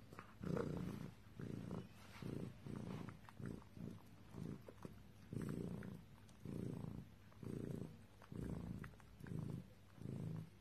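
Pet raccoon purring close by in a steady series of low rumbling pulses, roughly one a second, with faint small clicks between them; in a raccoon this purr is a sound of contentment.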